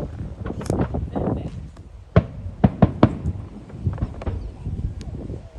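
Aerial fireworks shells bursting overhead. A string of sharp bangs, several in quick succession about two to three seconds in, over a low rumble.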